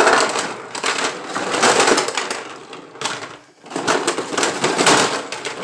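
Rummaging through a box of plastic toy train track pieces and packaging: continuous rustling and clattering as parts are handled, with a short lull about three and a half seconds in.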